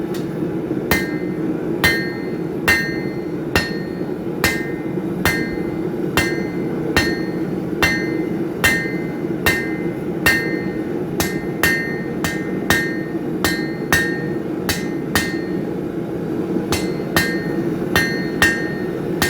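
Blacksmith's hand hammer striking hot steel on an anvil in a steady rhythm, the main blows about a second apart with lighter strikes between, each leaving a short high ring from the anvil. A steady low roar runs underneath.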